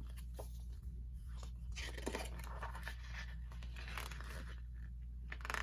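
Album digipack packaging and paper inserts being handled, giving short spells of rustling and crinkling with small clicks, busiest about two seconds in and again near the end.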